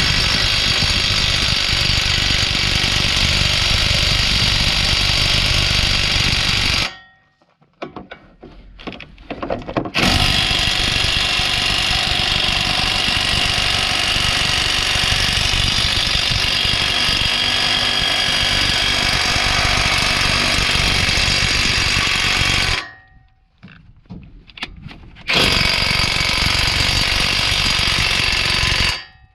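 Cordless 1/2-inch drive right angle impact wrench hammering in three long runs, about seven, thirteen and four seconds long, with short pauses and a few brief trigger blips between them.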